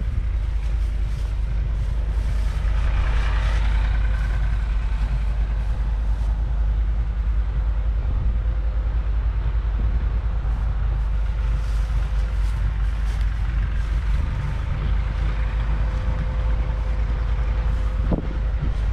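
A 1962 Nuffield 4/60's 3.8-litre four-cylinder diesel idling steadily, with wind buffeting the microphone.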